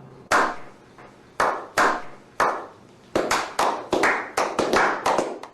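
Percussive music sting: sharp, clap-like hits with ringing tails, a few spaced out at first, then coming quickly, several a second, from about three seconds in.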